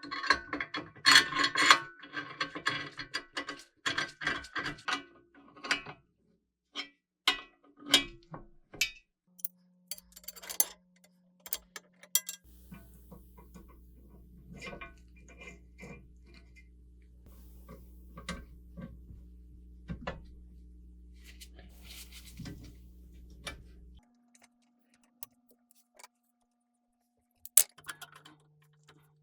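Small metal parts clicking and rattling, dense for the first few seconds and then sparser, followed by a steady low hum that cuts off near the end.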